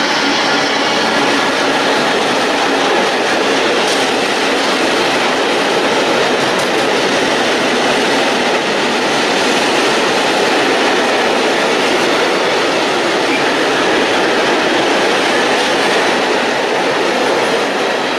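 A train passing close by at speed through a station: a loud, steady rush of wheels on rail.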